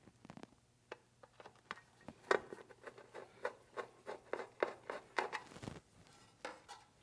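Light clicks, taps and rubbing of the thermostat access panel cover being fitted back onto an electric water heater, with the loudest knock about two seconds in.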